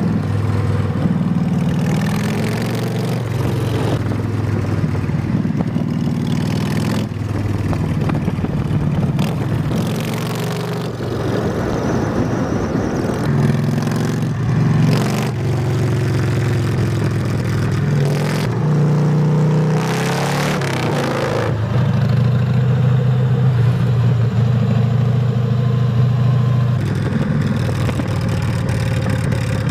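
Harley-Davidson V-twin motorcycles, a Sportster 1200 and then a Softail Breakout, with their engines running as they are ridden along, revving up a few times.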